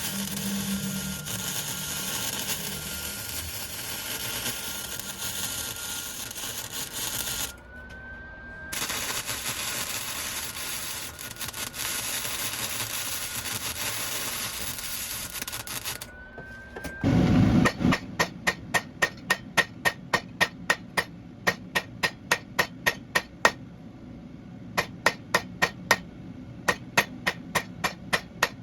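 Hand hammer striking hot Damascus billet steel on an anvil, sharp ringing blows about two to three a second with a short pause, coming in after a long steady rushing noise that fills the first half.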